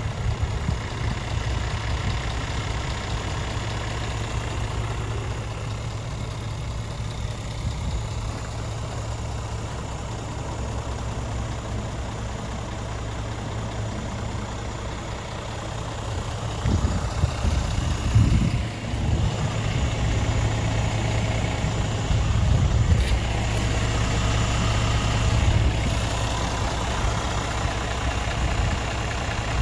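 Scania R450 tractor unit's 13-litre six-cylinder diesel idling steadily. A few louder, irregular rumbles come and go in the second half.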